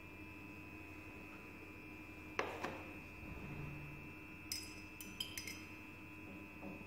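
Glass pipette knocking and clinking against a glass flask: one sharp knock about two and a half seconds in, then a quick run of small ringing clinks a couple of seconds later. A faint steady hum runs underneath.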